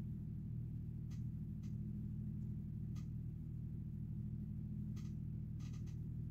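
Steady low electrical hum of a 2 kVA solar inverter running, with a few faint ticks scattered through.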